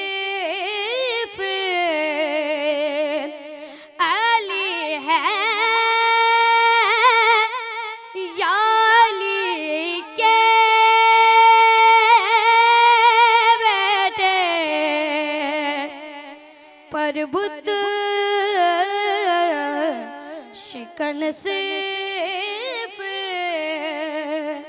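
A boy singing a manqabat, a devotional poem in praise of Imam Ali, solo into a microphone with no accompaniment: long held notes alternating with wavering, ornamented runs.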